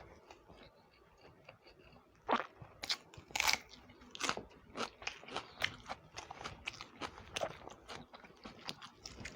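Close-miked mouth sounds of someone eating egg curry and upma: chewing with irregular wet smacks and clicks, a few a second, starting about two seconds in after a quieter stretch.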